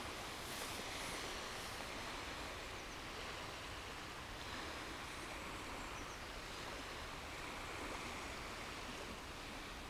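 Steady outdoor ambient noise over open sea, an even hiss with no distinct bird calls or other events standing out.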